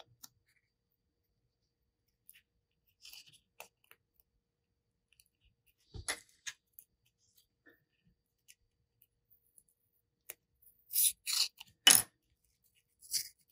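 Masking tape being peeled off a small piece of snake skin: faint rustling, then a few short crackling peels near the end, and a single sharp knock about twelve seconds in as something is set down on the bench.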